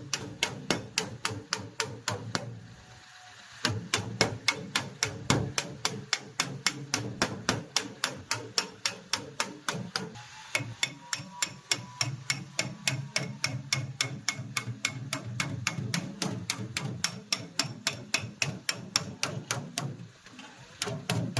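Hammer tapping rapidly and evenly, about four to five blows a second. It pauses for about a second near the three-second mark and again just before the end.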